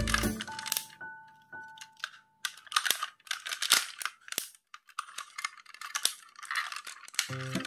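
Plastic parts of a Hello Carbot transforming toy robot clicking, snapping and rattling as it is folded by hand: a run of short, sharp clicks and handling noise. Background music stops at the start and comes back near the end.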